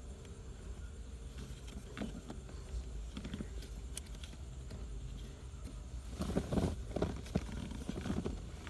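Scattered clicks and knocks of plastic gear-shift trim being handled and fitted, with a busier flurry of knocking and rustling about six seconds in, over a low steady hum.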